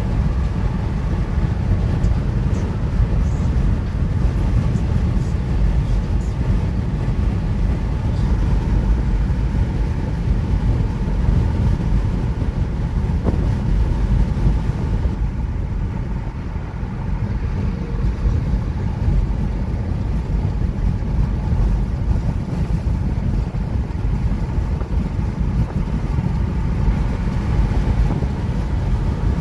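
Steady road and tyre rumble heard inside a car's cabin while driving at highway speed.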